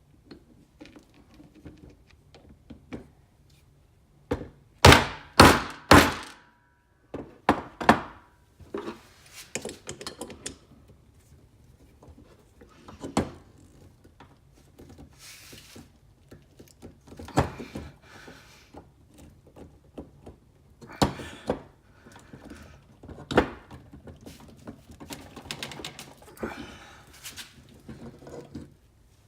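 Knipex Raptor slip joint spanner pliers being handled and worked: scattered metal clicks and knocks, with four loud knocks in quick succession about five seconds in.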